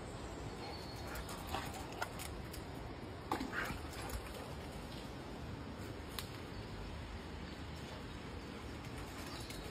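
Steady rushing noise of a woodland river, with a few short faint sounds over it, the clearest about three and a half seconds in.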